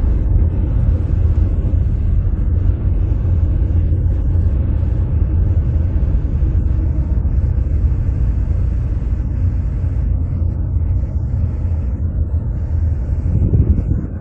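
Car driving along the road: a steady low rumble of tyre and engine noise, with a short swell near the end.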